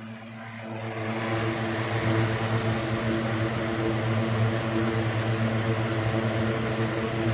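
1960s Toastmaster 16-inch box fan running at speed: a steady rush of air from the blades over a low motor hum, growing louder over the first couple of seconds.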